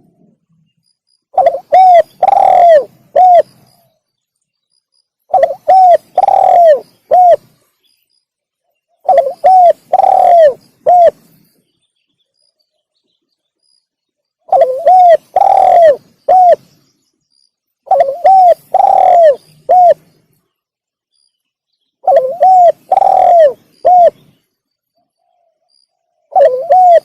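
Spotted dove cooing, its loud call repeated as a lure for wild spotted doves. Each phrase is two short coos, a long drawn coo and a final short one, and it comes about every four seconds, seven times.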